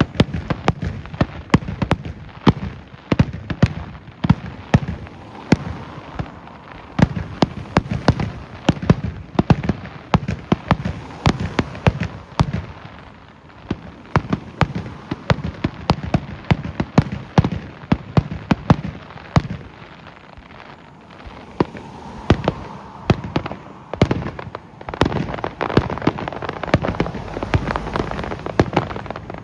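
Fireworks crackling: rapid, irregular sharp pops, several a second, thinning briefly about two-thirds of the way through.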